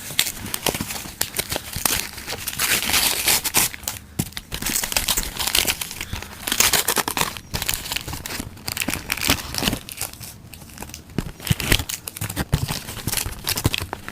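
Pokémon TCG blister pack being torn open by hand: its plastic and cardboard packaging crinkling and tearing in irregular crackles and short rips.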